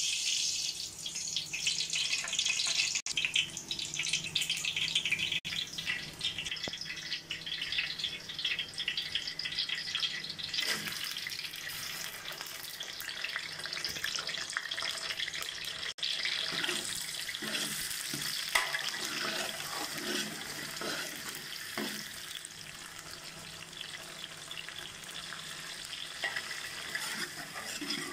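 Cooking oil poured into a large aluminium pot, then sliced red onions sizzling as they fry in the hot oil, a steady hiss that turns denser and crackly partway through.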